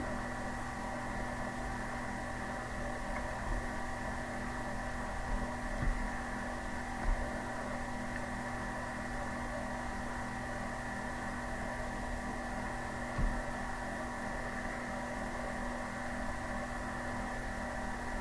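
Steady electrical hum made of several constant tones, with a few faint, short low thumps.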